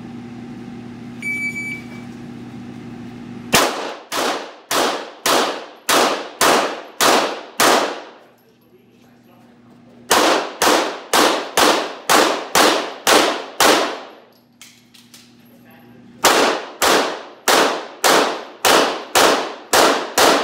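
A shot timer's short electronic beep, then three rapid strings of pistol shots separated by pauses of two to three seconds, each shot ringing off the walls of the indoor range.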